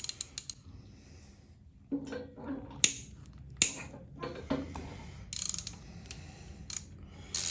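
Hand ratchet clicking in short runs, with a few sharp metal clicks, as the factory connecting-rod bolts on an LS V8's rod caps are broken loose one at a time.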